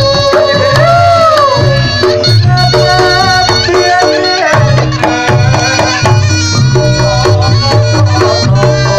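Live Reog Ponorogo gamelan music: a wavering, bending shawm-like melody over steady ringing gong tones and a repeating drum beat.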